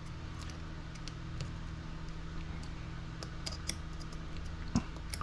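Small clicks and taps of hard plastic RC buggy suspension arms and a small hand driver being handled and worked, scattered and irregular, with one louder knock about five seconds in, over a steady low hum.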